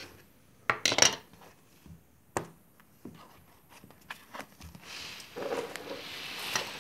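Desk items being handled and moved: a few sharp knocks as things are picked up and set down on the desk, the loudest about a second in and another a little later, then a steady rustling scrape over the last couple of seconds.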